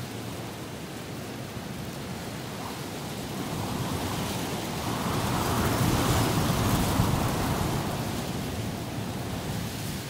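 Strong wind gusting. One gust swells from about three seconds in, peaks around six to seven seconds, then eases off.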